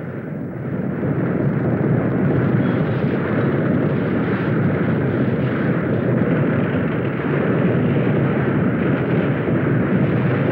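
Loud, steady rumbling roar, a dubbed earthquake sound effect, swelling louder about a second in and then holding.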